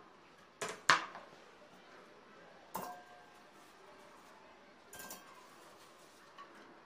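Frozen strawberries dropped into a stainless steel bowl, making a few sharp clinks, the loudest about a second in, some leaving a short metallic ring.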